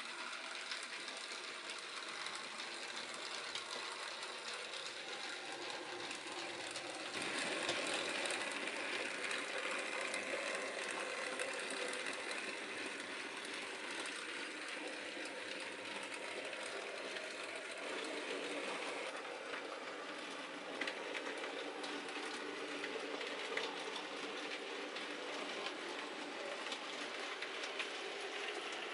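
Model J39 class locomotive running with a short goods train on model railway track: a steady whir of the motor and gears with fine clicking of wheels over the rail joints. It gets louder about seven seconds in as the train passes close and eases off around nineteen seconds.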